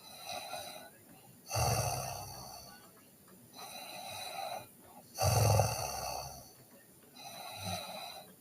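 A sleeping girl snoring: two loud, low snores about three and a half seconds apart, alternating with softer breaths.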